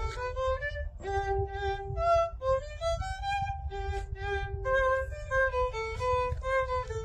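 Background music: a lively violin melody of short and held notes over a low rumble.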